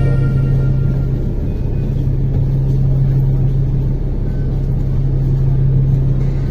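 Road traffic: a steady low engine hum and rumble, with cars driving past on the road.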